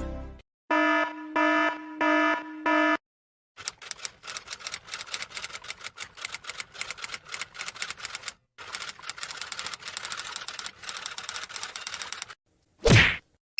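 Sound-effect sequence: four short, evenly spaced buzzer-like beeps, then about nine seconds of rapid typing clicks with a brief pause midway, ending in one short, loud whoosh.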